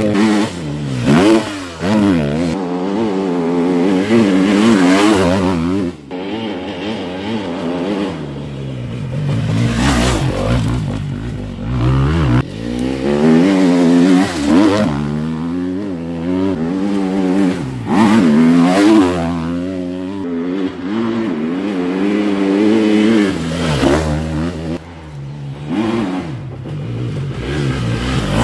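Dirt bike engine revving hard and dropping back, over and over, as the bike accelerates, shifts and slows on a dirt trail. The pitch climbs and falls in repeated sweeps, loudest as the bike comes close.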